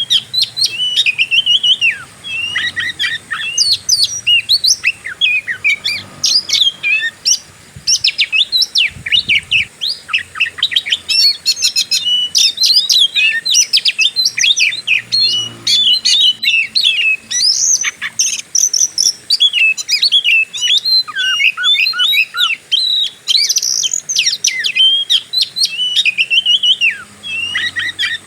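Oriental magpie-robin singing a long, fast, unbroken song of varied whistles and chirps in the aggressive 'fighter' style, with short pauses about two seconds in and near the end.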